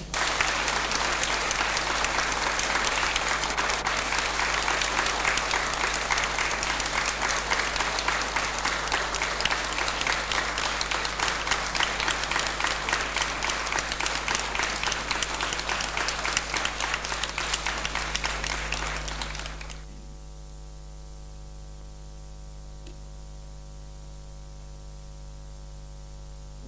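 Concert audience applauding for about twenty seconds, then cutting off suddenly, leaving a faint steady hum.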